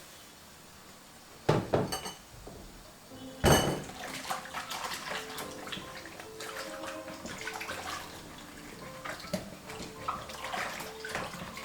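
Dishes being washed by hand: two loud clanks of metal dishware, with a brief ringing, about a second and a half and three and a half seconds in, then water splashing and pouring with steady clinking of dishes and cutlery.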